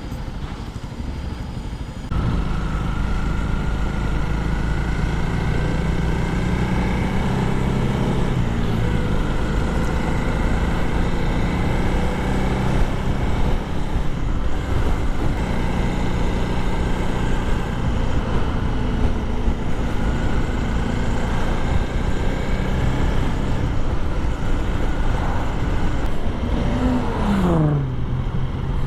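Honda CRF300L single-cylinder engine running under way. It gets louder about two seconds in as the bike pulls harder, its pitch rising and dropping with throttle and gear changes, then falls away near the end as the bike slows.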